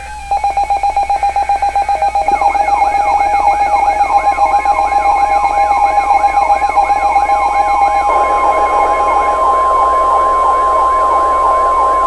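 Emergency alert sounds: a rapid pulsing beep, then a siren-like yelp sweeping up and down about two and a half times a second. About four seconds in, a steady high alarm tone joins it, typical of the NOAA Weather Radio warning alarm.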